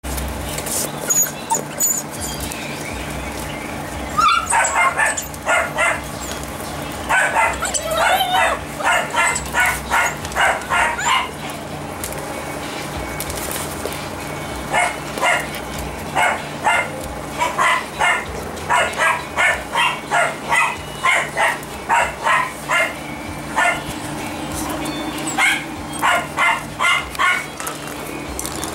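Siberian husky puppies barking in runs of short, high yaps, about two a second, with pauses between the runs, over a steady low hum.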